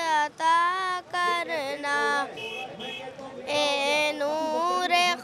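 A young boy singing an Urdu naat solo, drawing out long notes that bend and waver in pitch, with short breaks between phrases.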